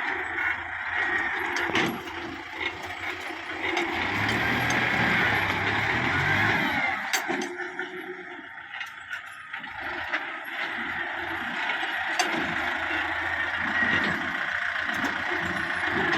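Kubota MU5501 tractor's diesel engine running as it works a front dozer blade, with a few sharp clanks from the machine.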